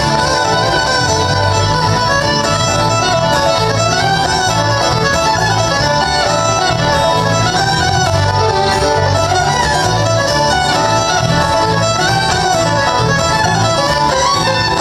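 Live bluegrass instrumental: fiddle bowing a melody over guitar and mandolin backing, with a steady low bass pulse underneath.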